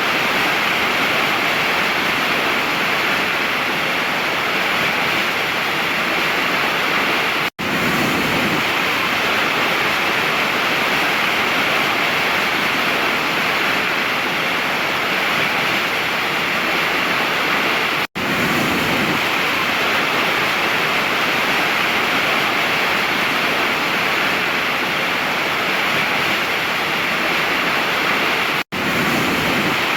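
Steady rush of a waterfall, an even hiss of falling water. It cuts out for a split second three times, about ten seconds apart, and resumes at once.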